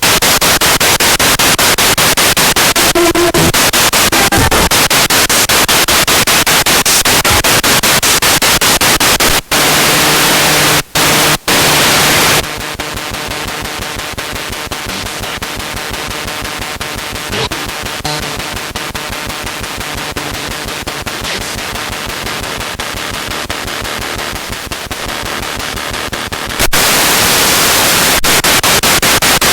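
Spirit box radio sweeping through stations: loud hissing static chopped into rapid pulses, with a few short dropouts about ten seconds in. From about twelve seconds until near the end the static is quieter and faint snatches of radio sound come through, then loud static returns.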